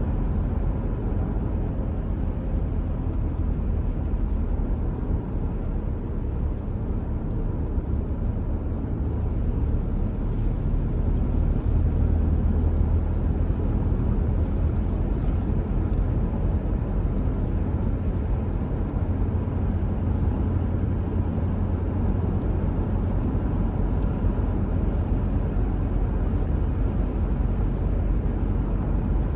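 A car driving at a steady speed: a constant low rumble of tyres and engine, getting a little louder about ten seconds in.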